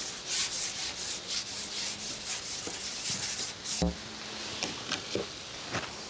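Carbon fishing pole being shipped back hand over hand while a hooked fish is played, a rubbing swish about three times a second as the pole slides through the hands. A single knock comes a little under four seconds in, followed by a few light clicks.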